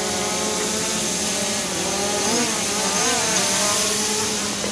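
Hubsan H501M quadcopter's motors and propellers whining as it lifts off on auto-takeoff. The whine's pitch wavers up and down about halfway through as the drone climbs and settles into a hover.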